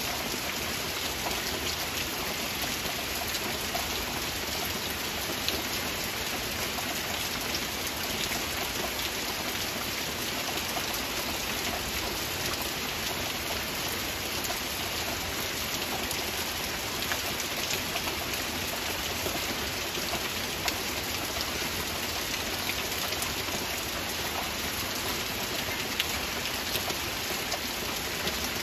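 Steady heavy rain, with many single drops striking close by.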